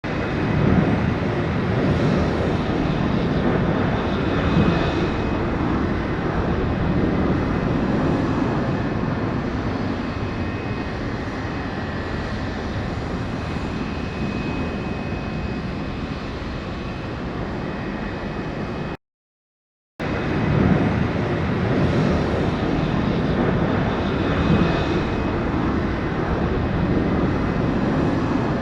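Aircraft engine noise at a landing field: a steady drone with a faint high whine over it. About two-thirds of the way through it cuts out for a second, then starts again.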